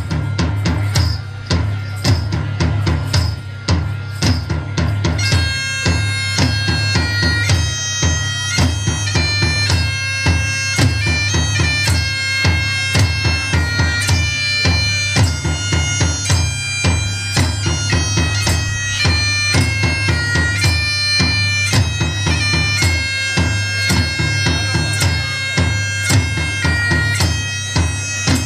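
A drum struck with felt-headed mallets plays a steady beat alone. About five seconds in, a bagpipe enters over it and plays a melody above its drone, with the drum continuing underneath.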